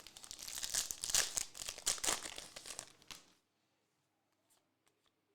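Trading-card pack wrapper crinkling and tearing as a pack is ripped open, for about three seconds, then it stops.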